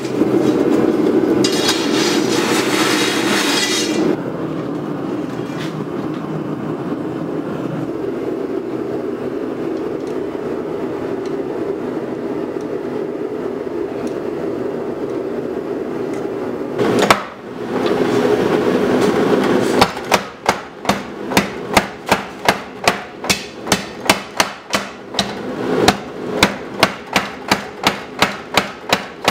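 The motor and flywheel of a 50 lb Little Giant mechanical power hammer running with a steady hum. About twenty seconds in, the hammer starts striking hot knife steel on its die, about three blows a second, in runs with short pauses.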